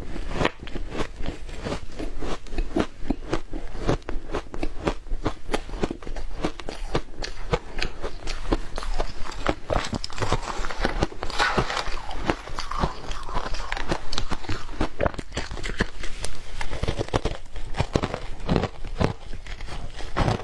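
Close crunching and chewing of frozen shaved ice: a rapid, continuous run of crisp crunches. About ten seconds in, a spoon scrapes and scoops through the ice in the plastic tub.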